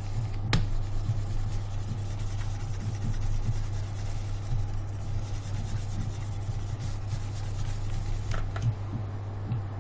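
Steady low background hum, with a sharp click about half a second in and a few fainter clicks near the end.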